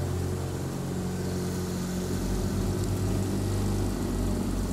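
Boat's outboard motor running steadily with a low hum.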